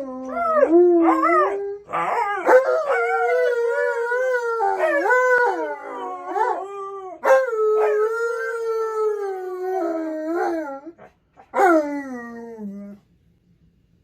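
A husky-type dog 'talking': long howl-like calls that swoop up and down in pitch, in a string of phrases with short breaks, stopping near the end. It is the demanding vocalizing of a dog asking its owner for something.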